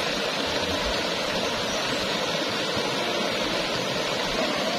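Fast-flowing shallow river water rushing steadily, a constant even rush with no break.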